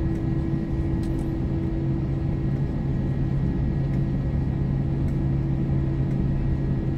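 An Airbus A321's jet engines running at taxi power, heard inside the cabin beside the wing. The sound is a steady rumbling drone with a low hum and a higher steady tone over it.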